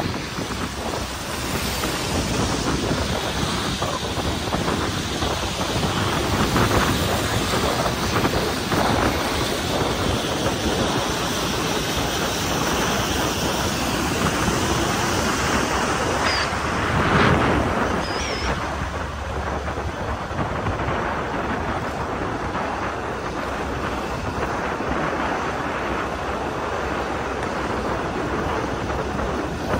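Wind rushing over the microphone with road noise from a vehicle moving along a wet road, steady throughout, swelling louder for a moment a little past halfway.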